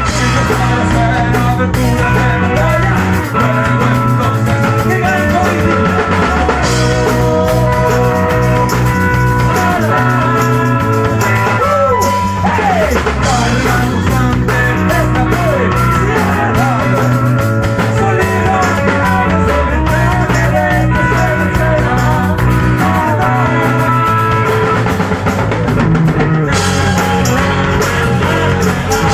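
Live rock band playing at full volume: a drum kit, electric bass and electric guitar, with a steady beat throughout.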